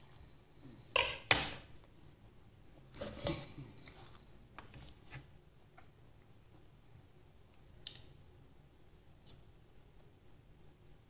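Metal cutlery clicking against a ceramic plate: two sharp clicks about a second in, then a short scrape and a few lighter clicks, with quiet chewing between them.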